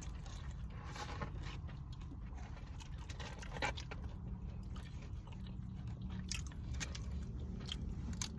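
A person chewing and biting food close to the microphone, with scattered short crunches, over a low steady hum.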